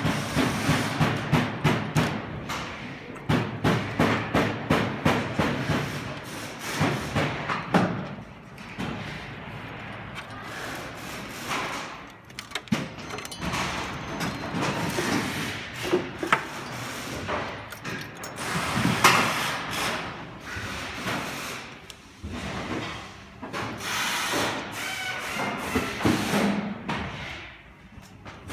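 Hands working inside a chair's backrest mechanism while plugging in motor wires: cables and plastic parts rubbing and rustling, with many small clicks and knocks. A quick run of clicks and taps at first gives way to quieter rubbing, and one sharper knock comes partway through.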